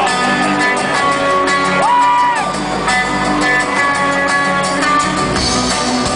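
Live rock band playing, with strummed guitar to the fore.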